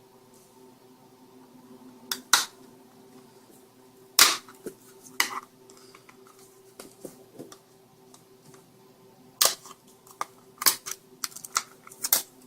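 Sharp cracks and snaps of a laptop power adapter's glued plastic case being pried and twisted apart with a screwdriver and knife: a few single snaps in the first half, then a quick run of them near the end. A faint steady hum runs underneath.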